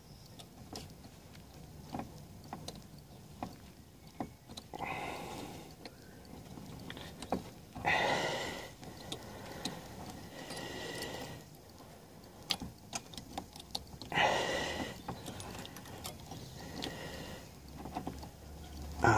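Scattered small clicks and rattles of hand work on a car's fog lamp fitting, with a few louder short scraping rustles.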